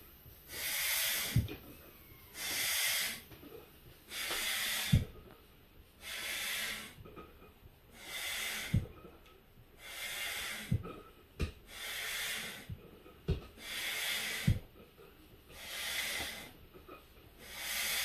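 Hand pump inflating a latex balloon: about ten strokes, each a rush of air lasting under a second, roughly one every two seconds, most with a light knock as the stroke ends.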